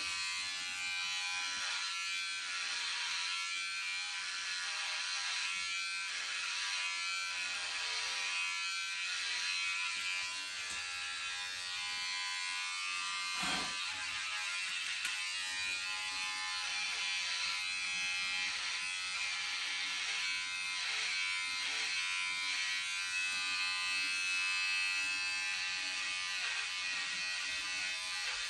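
Electric hair clippers buzzing steadily as they cut a man's hair.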